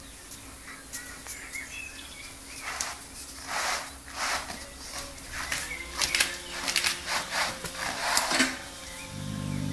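A young Siberian husky chewing and tugging a bristly door mat: an irregular run of rough scraping and rasping noises as its teeth work the bristles and the mat drags on the tile floor. A short low growl near the end.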